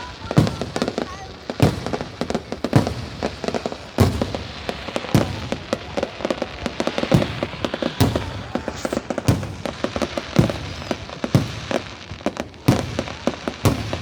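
Fireworks going off: loud bangs about once a second over continuous crackling.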